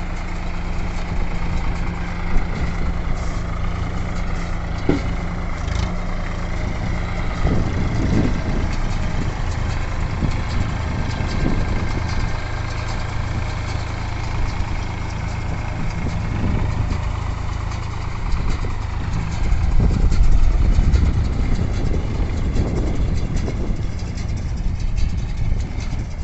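Swaraj 963 FE tractor engine running steadily while powering a baler, with a heavier low pulse every few seconds.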